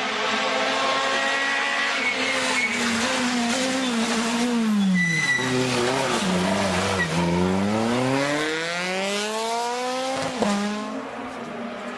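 Citroën C2 R2 Max rally car's four-cylinder engine: revs held high, then falling as it slows into a hairpin, with a short high tyre squeal about five seconds in. A long rising rev follows as it accelerates out, broken by a sharp gear change about ten seconds in.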